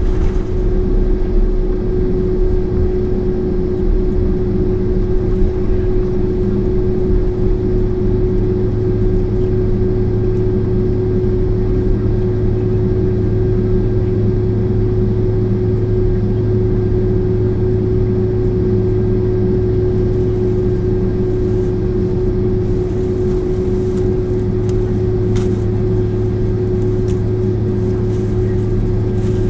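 Boeing 767-400ER jet engines heard from inside the economy cabin: a steady drone with a strong steady hum over a low rumble, not changing pitch, with a few faint clicks in the cabin near the end.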